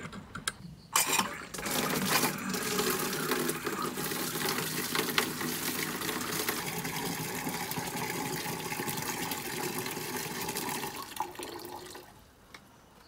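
Water running from an outdoor standpipe faucet into a plastic watering can, a steady filling sound. The flow stops sharply about a second before the end as the tap is turned off.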